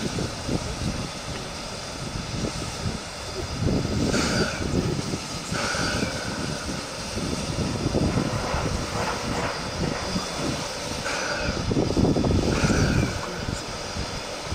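C11-class steam tank locomotive (C11 171) standing with steam up, giving off short hisses that come in pairs about a second and a half apart, twice, over a low, uneven rumble.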